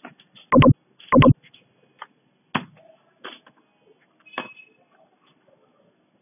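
Computer keyboard and mouse in use: a few sharp knocks and clicks, two loud ones in the first second and a half, one more at about two and a half seconds and another at about four and a half, with faint ticks in between.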